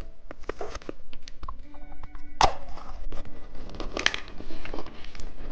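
Plastic candy wrapper being handled and torn open: crinkling with many sharp crackles and a loud snap about two and a half seconds in.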